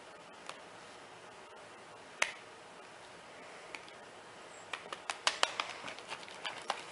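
Plastic buttons of a handheld TV remote being pressed: a few single clicks spaced a second or more apart, then a quick run of clicks in the last two seconds.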